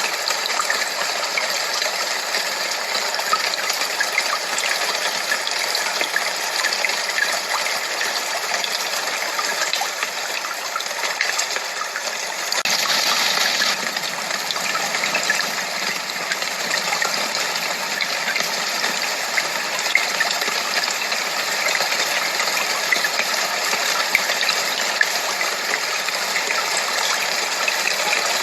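Steady, even rushing noise of a tinnitus-masking track. It turns brighter and hissier for about a second roughly halfway through.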